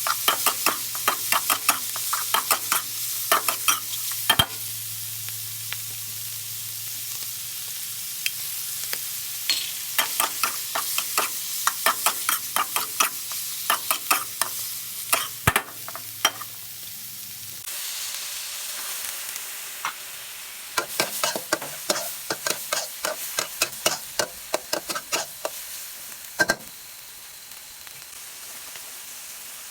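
Seafood stir-frying in roasted chili paste, sizzling in the pan while a spatula scrapes and clacks against it in bursts of quick strokes with short pauses. A low steady hum stops about two-thirds of the way through.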